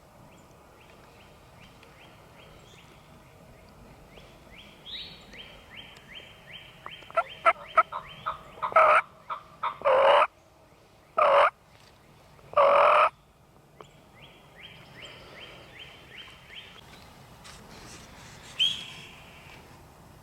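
Wild turkeys calling: runs of quick, evenly spaced yelps, broken by several loud gobbles from a tom close by. The gobbles come between about seven and thirteen seconds in, and a single sharp call follows near the end.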